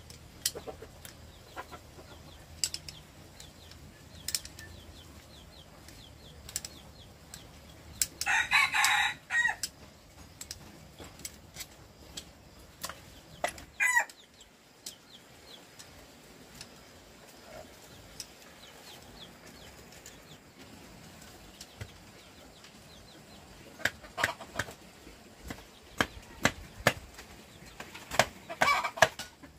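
A rooster crows once, about eight seconds in, against scattered sharp clicks and taps of tools being handled. A low hum cuts off about halfway through, and a quick run of taps comes near the end.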